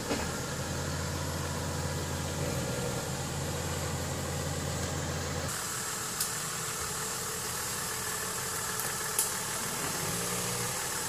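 Toyota Land Cruiser FJ80's engine running at low revs as the truck crawls over rough trail, with a few sharp clicks. The engine hum steadies for the first half, then changes abruptly about halfway through.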